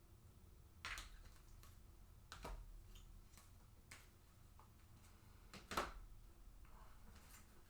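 Quiet handling of trading cards on a table: a few short, light taps and clicks as cards are laid down and sorted into piles, the loudest a little before six seconds in.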